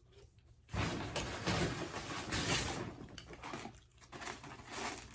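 Rustling and crinkling of a takeout bag and food containers being unpacked, starting about a second in and going on in bursts.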